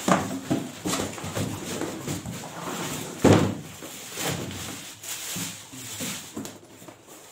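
Plastic packing wrap crinkling and cardboard rustling and scraping as packaging is handled and a small box is lifted out of a larger cardboard box. There is a louder thump about three seconds in.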